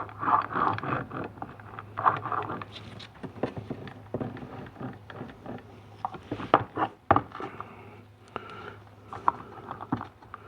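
Internal parts of a 4L80e automatic transmission being taken apart: a run of irregular metal clicks, knocks and scrapes, over a steady low hum.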